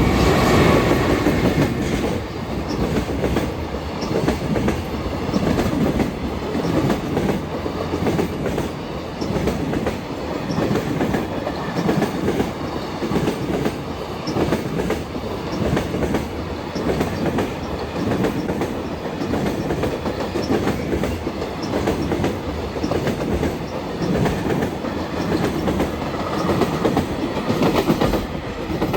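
Train running past close by, its wheels clattering over the rail joints in a steady, regular rhythm.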